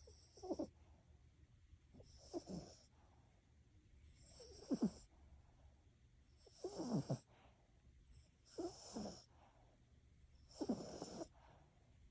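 Poodle snoring quietly in its sleep: six short snores, about one every two seconds, each sliding down in pitch with a breathy hiss.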